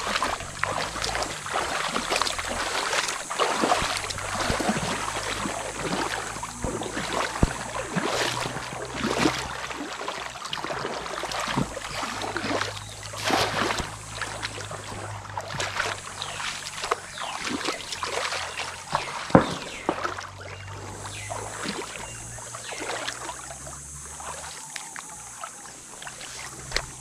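Shallow river water splashing and sloshing irregularly as people wade and work in it by hand, with one sharper splash about two-thirds of the way through, over a low rumble.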